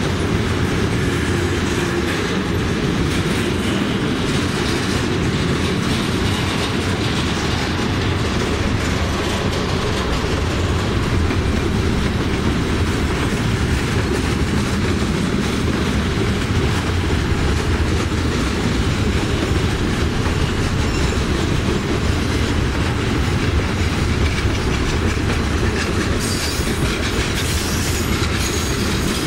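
Freight cars, including bulkhead flatcars loaded with pulpwood logs, rolling steadily past, the steel wheels running on the rails.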